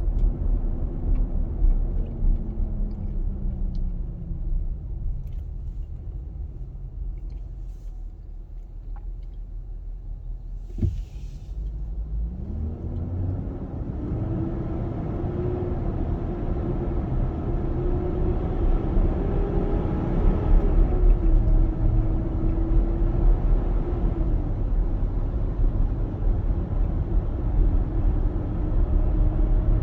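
2021 Nissan Armada's V8 engine noise while driving, over a constant low rumble. Its tone falls over the first few seconds as the vehicle slows, then rises from about twelve seconds in as it speeds up and holds fairly steady. There is a single click just before it picks up. This is the loud engine noise the owner is complaining about.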